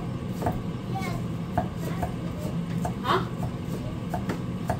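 Kitchen knife knocking on a cutting board, a dozen or so sharp strokes at an uneven pace, over a steady low hum.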